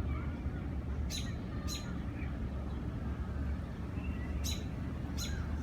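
Small birds chirping: four short, sharp, high chirps in two pairs, with fainter thin calls between them, over a steady low background rumble.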